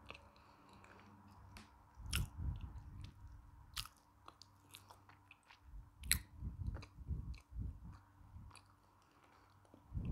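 Close-miked chewing of a mouthful of lump chalk: spells of crunchy chewing with sharp cracks, about two and six seconds in, separated by quiet pauses.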